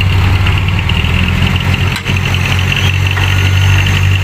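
Heavy diesel truck engine idling with a steady low hum, with a brief dip about two seconds in.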